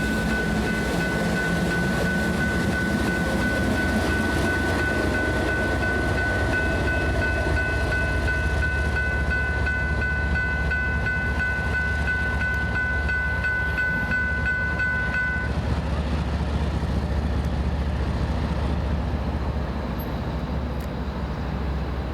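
Freight train rolling past with a steady low rumble of cars on the rails. A high, steady squeal rides over it and stops about fifteen seconds in.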